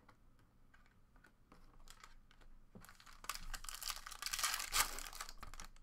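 A foil trading-card pack being torn open and its wrapper crinkled. It starts as a few light clicks and rustles, then becomes a dense crackling about three seconds in that is loudest near the end.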